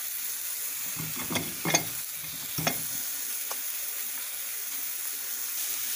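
Seasoned sirloin beef patty sizzling on a hot comal, a steady frying hiss, with a few short knocks between about one and three seconds in.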